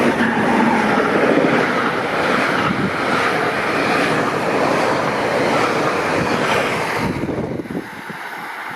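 Metro-North diesel commuter train passing close at speed: a steady rushing roar of the coaches on the rails, with wind buffeting the microphone, which drops away about seven seconds in as the train clears.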